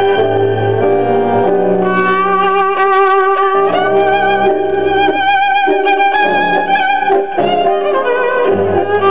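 Argentine tango music: a violin carries the melody with a wavering vibrato over a steady bass line.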